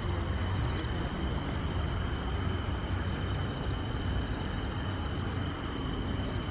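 Steady low background rumble with a constant high-pitched tone over it.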